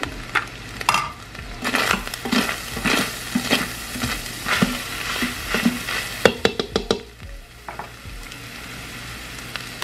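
Ground beef, mushrooms and onion sizzling in an Instant Pot's stainless steel inner pot while a utensil stirs and scrapes through them in quick strokes. The stirring stops about seven seconds in, leaving a steady sizzle.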